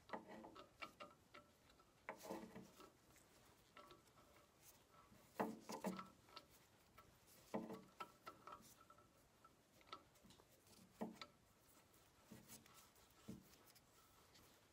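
Hex key and small metal parts handled during assembly of a tractor's hydraulic lift cover: faint, irregular clicks and clinks in small clusters every second or two.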